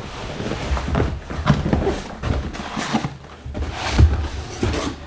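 Cardboard shipping box being unpacked by hand: flaps and packing paper rustling and scraping, with irregular knocks as an inner box is lifted out.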